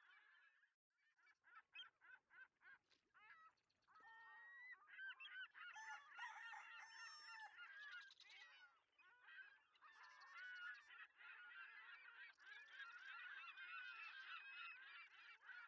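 Faint calling of a flock of birds: many short, overlapping calls that bend up and down in pitch, running on with only brief gaps.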